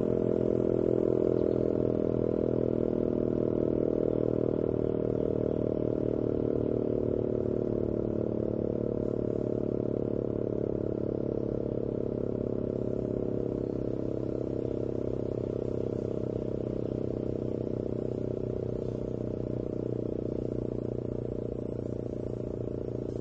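ACA Banshee 115 outdoor warning siren sounding its steady alert tone, a continuous wail slowly getting quieter, with other sirens sounding in the distance.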